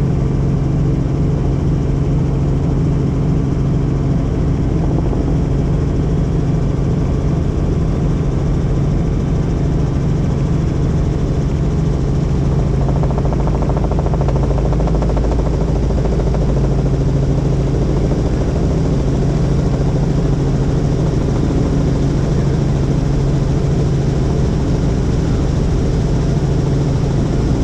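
Helicopter in flight: a loud, steady drone of rotor and engine with a constant low hum.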